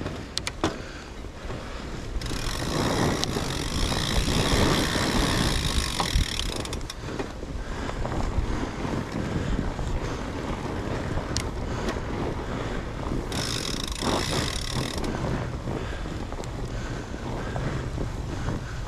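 Wind buffeting an action-camera microphone over the running noise of a fat bike ridden on a snowy trail, with scattered clicks and knocks from the bike. A louder hiss rises about two seconds in and lasts some four seconds, then comes again briefly around thirteen seconds in.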